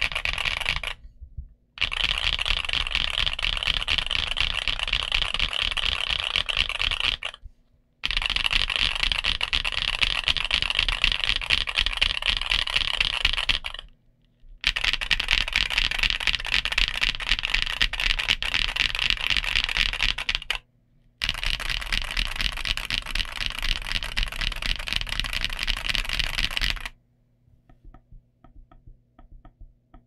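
Fast, continuous typing on a Monsgeek M1V3 mechanical keyboard with Akko V3 Cream Blue Pro tactile switches and Akko silent PBT keycaps. It comes in runs of about six seconds with brief pauses between them. Near the end the typing stops, leaving only a few faint taps.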